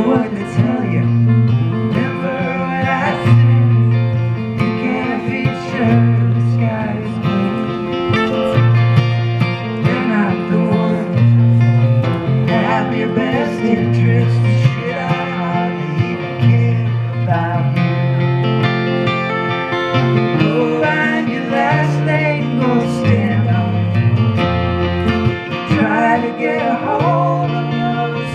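Live acoustic duo: an acoustic guitar and a second amplified guitar playing a song together, with a voice singing over low bass notes that change every second or two.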